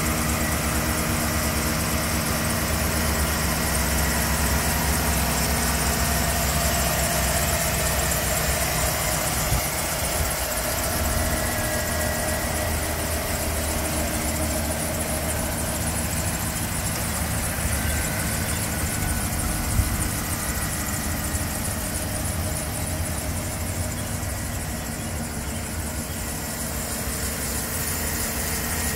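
Chevrolet Silverado 1500 V8 engine idling steadily, heard with the hood open, with a thin high whine over the idle. There is one sharp click about twenty seconds in.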